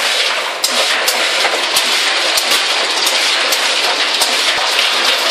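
Multihead weighing machine running: a steady, loud rain-like clatter of popcorn pouring through its stainless-steel hoppers and chutes, with frequent sharp clicks, about two a second and irregular.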